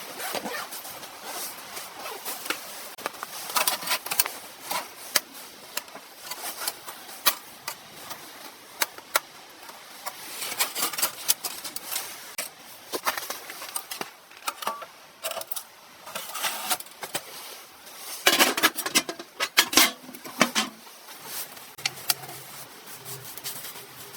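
Irregular clicks, knocks and scrapes of close hand work at a small wood stove as a fire is laid and lit, with louder clusters of clatter about halfway through and again near the end.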